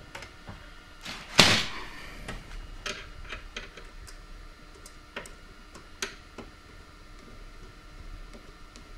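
Small metallic clicks and scrapes of a screwdriver turning short screws into a computer case's steel drive cage, with one louder knock about a second and a half in.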